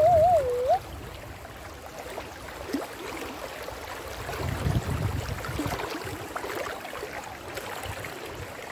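River in flood rushing past, a steady noise, with wind buffeting the microphone in a low, uneven rumble. At the very start a woman's voice gives a brief wavering 'ooh'.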